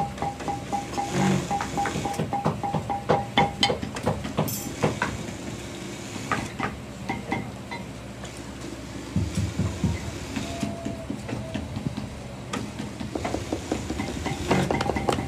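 Workshop clatter from shoe-making handwork: many irregular clicks and knocks, with a steady pulsing tone in the first few seconds and a few heavier low thuds about two-thirds of the way through.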